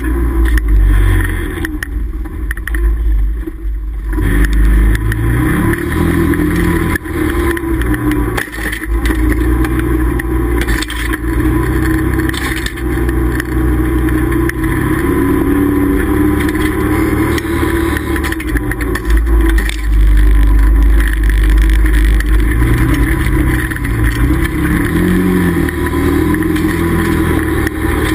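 Can-Am Commander side-by-side's V-twin engine running as it drives along a snowy trail, its pitch rising and falling with the throttle over a steady low rumble, with a few brief knocks along the way.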